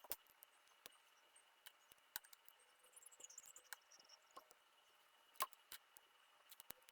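Faint, irregular clicks and clacks of LEGO plastic pieces being handled, the loudest about five and a half seconds in, with a brief faint high squeak around three seconds in.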